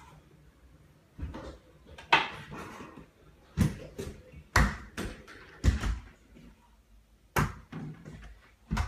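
Metal underarm crutches striking a hard floor while someone walks on them: about seven sharp knocks with a low thud, roughly one a second in an uneven rhythm.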